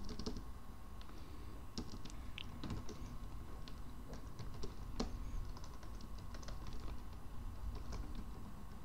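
Typing on a computer keyboard: quick, irregularly spaced keystrokes with short pauses between runs.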